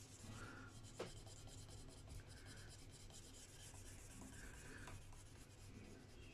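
Faint, slow strokes of fine abrasive rubbed by hand over a guitar's painted finish, about one every two seconds, with a small click about a second in.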